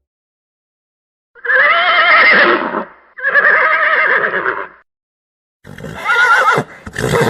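Horse neighing three times in a row, starting about a second in, each call with a wavering, quavering pitch; the last ends in a short, harsher burst.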